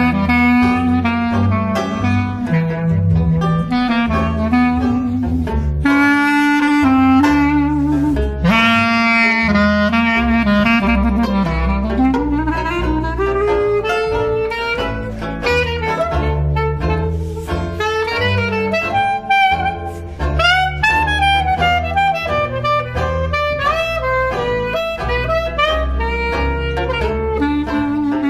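Clarinet playing a jazz solo line, with a long upward run near the middle, over a walking upright double bass and strummed banjo.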